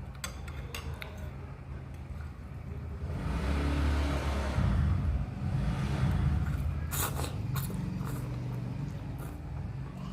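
Eating a bowl of instant noodle soup with meatballs: sharp utensil clicks against the bowl near the start and again about seven seconds in. In the middle, a rushing sound with a low rumble swells and fades over about three seconds.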